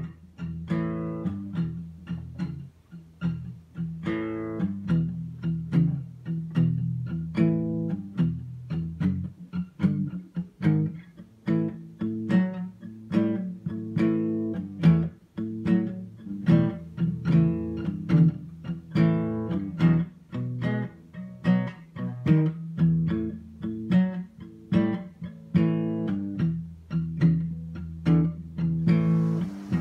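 Background music: a guitar tune of plucked notes at an even, steady pace.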